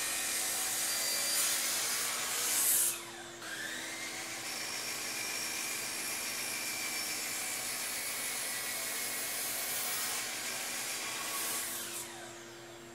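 DeWalt miter saw running and cutting through a thick softwood board, a steady mechanical whine and saw noise. About three seconds in the sound dips in pitch and level and then recovers; it fades near the end.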